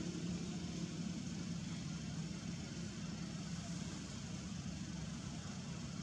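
Steady low hum over an even outdoor hiss, the hum easing a little after about two seconds.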